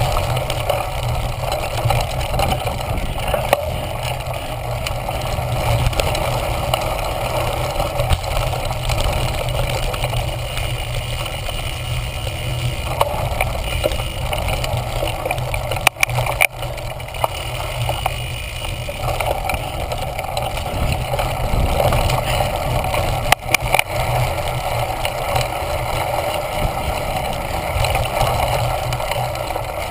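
Steady rumble and rattle of a cyclocross bike riding over bumpy grass, picked up through a GoPro Hero mounted on the handlebars. There is one sharp knock about halfway through and another a few seconds later.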